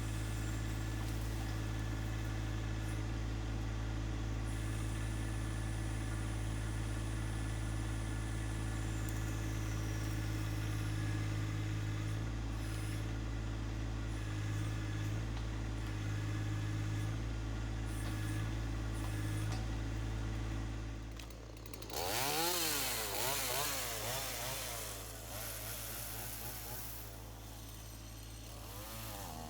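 An engine idles steadily; then, about 22 seconds in, a chainsaw starts revving and cutting, its pitch rising and falling repeatedly.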